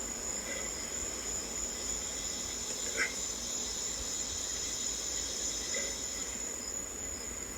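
Insects chirring outdoors, a steady high-pitched drone that runs unbroken, with one brief faint chirp about three seconds in.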